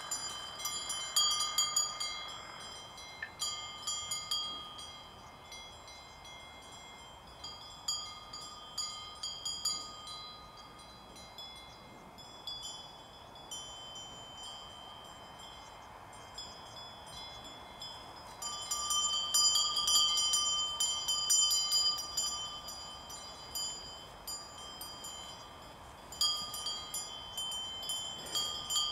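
Cowbells on the collars of grazing cows clanking irregularly as the cattle move their heads. Several bells ring over one another, thinning out mid-way and then clanging busily again about two-thirds of the way through.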